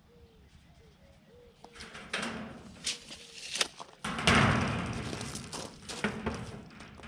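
Knocks and clatter of building materials being handled on a roof build: several sharp knocks, then a louder scraping rush about four seconds in that fades over a second, and a few more knocks near the end.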